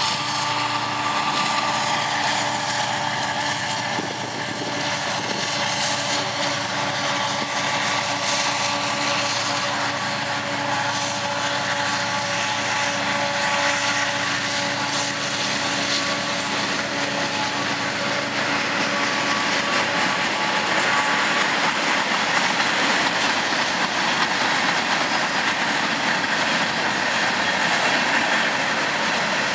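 Two EMD diesel road locomotives, an SD70ACe and an SD70M, passing at the head of a freight train with a steady engine drone. About twenty seconds in the drone gives way to the rolling wheel-and-rail noise of the freight cars going by.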